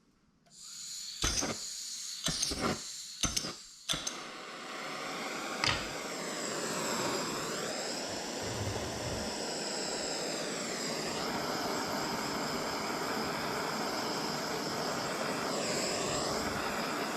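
Handheld gas soldering torch: gas hisses on, several sharp igniter clicks, then it lights with a pop about six seconds in and burns with a steady roar for the rest.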